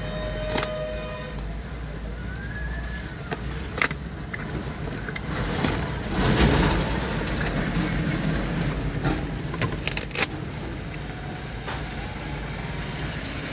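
Cardboard box and plastic wrapping being handled and opened, with a few sharp clicks and a louder rustle about six seconds in. Under it runs a steady low hum of a car.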